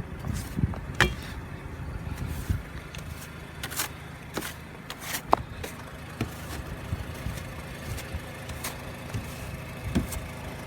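Car engine idling steadily, with scattered short, sharp knocks and clicks on top.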